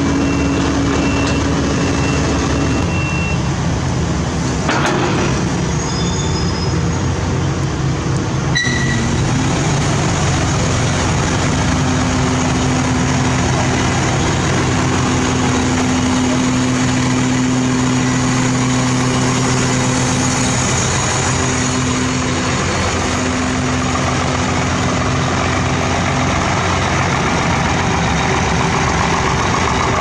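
Heavy diesel trucks running steadily as they pass at close range, with a short, sharp sound about nine seconds in.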